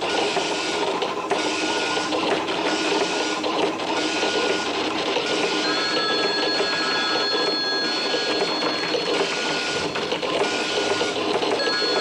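Dot-matrix computer printer running continuously on fan-fold paper, its rattle repeating about once a second. A little before halfway a telephone starts ringing over it, stops a few seconds later, and starts ringing again near the end.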